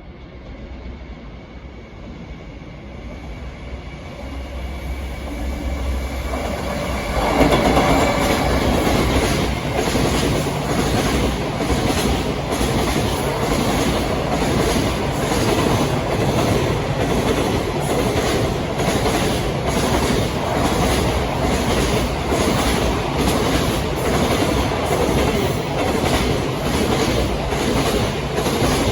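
Freight train approaching, growing louder over the first several seconds, then passing by from about seven seconds in: a steady rumble from the wagons with a regular clickety-clack of the wheels over the rail joints.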